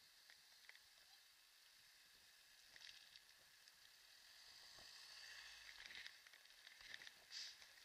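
Faint steady hiss of kick-scooter wheels rolling on a paved country lane. A car passes close by, its low rumble and tyre noise swelling about five seconds in, with a short clatter near the end.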